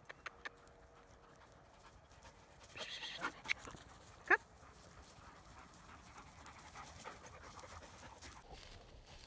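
Dogs running on grass, panting, with a few light clicks near the start and one short dog bark about four seconds in, the loudest sound.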